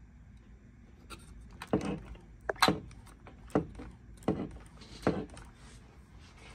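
ARRMA Mojave 4S RC truck's coilover shock suspension pushed down by hand and let spring back, giving five short plastic clunks and rattles a little under a second apart.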